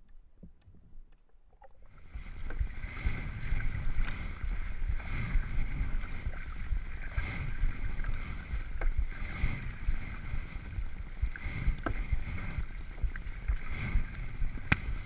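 Tandem sit-on-top kayak being paddled: paddle blades splashing and water rushing along the hull, swelling about once a second with the strokes, with a sharp knock near the end. It starts about two seconds in, after a faint, muffled stretch with a few small ticks.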